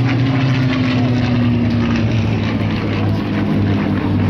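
Supermarine Spitfire's Rolls-Royce Merlin V12 engine running at display power as the fighter flies by, its pitch falling slightly over the first couple of seconds.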